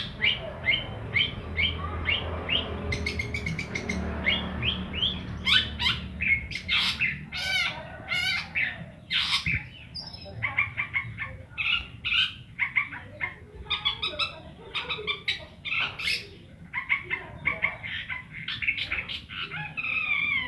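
Caged long-tailed shrike (cendet) singing without a break: first a run of quick repeated chirps, about three a second, then a varied stream of fast trills, warbles and whistled glides. It is a young bird just learning to sing in full voice (ngeplong).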